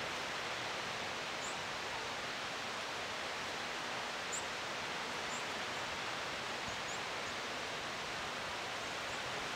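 Steady outdoor background hiss in an open field, with a few faint, short, high chirps scattered through it.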